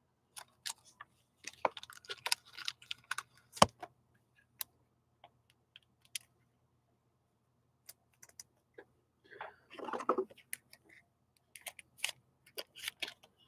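Trading cards and their plastic sleeves and holders being handled on a desk: scattered light clicks and taps as cards are slid into sleeves and set down, with a short rustle of plastic about ten seconds in.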